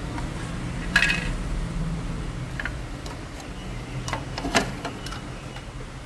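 Several short clicks and light knocks of a refrigerator inverter circuit board and its black plastic housing being handled and fitted together, the loudest about a second in and another strong one past the middle.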